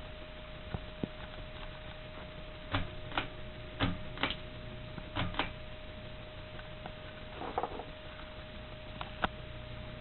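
Flush-mounted ceiling fan running with a steady hum, with scattered sharp clicks and taps, several in quick pairs, during the middle of the stretch.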